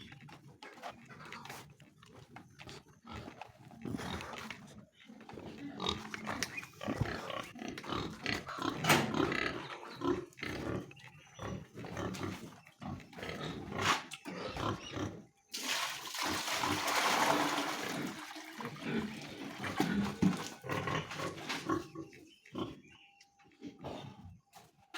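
Pigs calling at irregular intervals, mixed with knocks and movement noises. The loudest part is a noisy stretch of about three seconds, roughly two-thirds of the way through.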